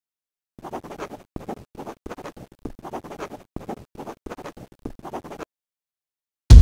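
Scratchy writing strokes, a dozen or so short irregular scrapes in quick succession, as of a pen or chalk tracing handwriting. Near the end comes a single loud, deep thump.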